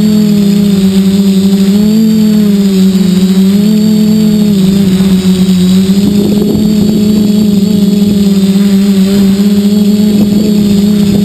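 Quadcopter's electric motors and propellers humming steadily, heard from the camera mounted on the quad, the pitch wavering slightly as it holds a low hover. Some rough crackle joins in from about halfway through.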